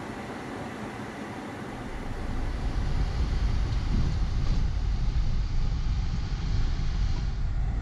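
Subaru Forester SG driving off along a backroad: its flat-four engine and tyre noise, with a low rumble that builds about two seconds in as the car gets under way.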